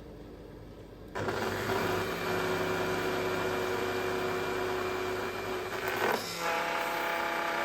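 Router table with a Comatic baby power feed pulling a board through the router cutter. About a second in, the sound jumps from a low hum to a loud, steady machine hum with hiss as the cut begins. Just after six seconds there is a brief knock, and the hum settles slightly lower in pitch.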